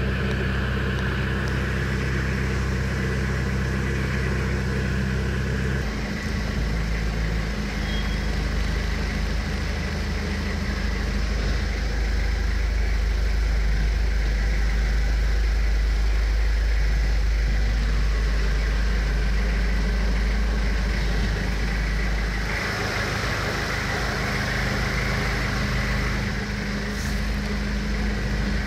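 A Fiat Croma 2500 TD's 2.5-litre four-cylinder turbo-diesel engine idling steadily, heard from inside the cabin. Its note shifts once about six seconds in and again a few seconds before the end.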